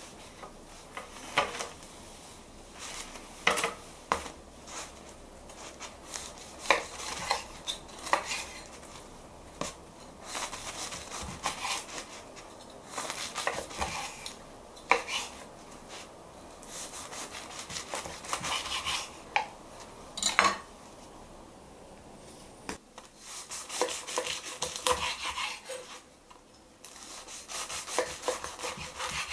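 A knife sawing through a crusty ciabatta loaf on a wooden cutting board, in repeated rasping strokes, slice after slice, with the blade clicking against the board between cuts.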